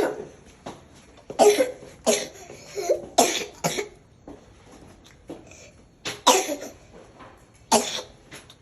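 A young child coughing repeatedly, about seven separate coughs at uneven intervals, with a quieter gap of about two seconds in the middle.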